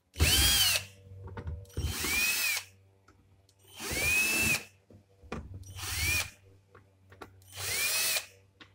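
A TOTAL electric drill-driver backing the screws out of a plastic extension board's case, run in five short bursts about two seconds apart. Each burst is a motor whine that rises and then falls as the trigger is pressed and let go.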